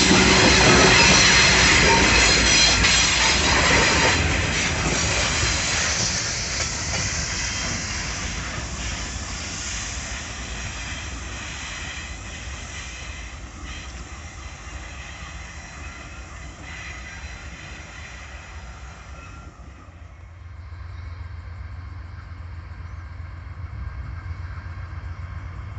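Diesel freight train passing close with its wheels squealing and clacking on the rails, then fading steadily as it rolls away into the distance. About twenty seconds in the sound changes abruptly to a low rumble that grows louder toward the end.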